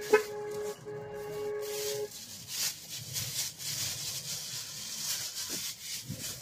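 Thin plastic produce bags crinkling and rustling as vegetables are handled and pulled out of them, with a sharp click just after the start. A steady whistle-like tone sounds for the first two seconds, then stops.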